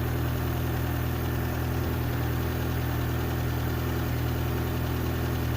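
Peugeot 307 CC's 1.6 16v four-cylinder petrol engine idling steadily.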